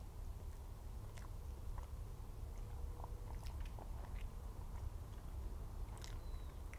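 Close-miked chewing and biting of choux cream puffs with pink chocolate glaze: soft mouth sounds with scattered small clicks and smacks, over a steady low hum.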